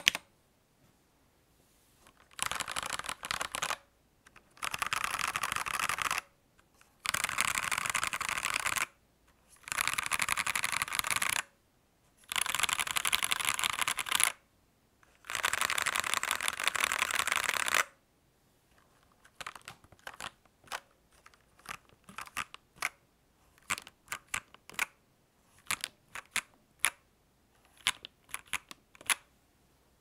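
Royal Kludge RK H81 gasket-mounted mechanical keyboard being typed on: six bursts of fast, continuous keystrokes, each about two seconds long with short pauses between. For the last ten seconds the presses are slower and quieter, scattered single keystrokes.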